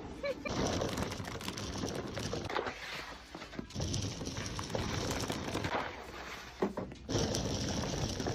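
Plastic packaging being crinkled and handled, with light knocks of items being moved about, as in restocking.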